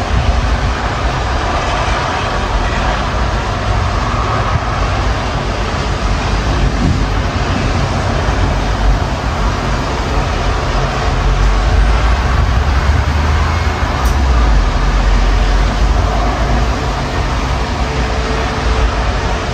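Thunderstorm ambience: a steady rushing of wind and rain, with a deep rumble that swells from about eleven to sixteen seconds in.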